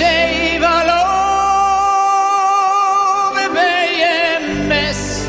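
Male lead vocalist singing a cantorial-style line with vibrato over orchestral accompaniment, holding one long note from about a second in until past the midpoint. The low accompaniment drops away under the held note and comes back near the end.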